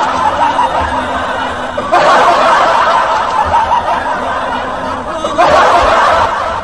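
A crowd laughing, a dubbed-in laugh track, with fresh swells of laughter about two seconds in and again near the end.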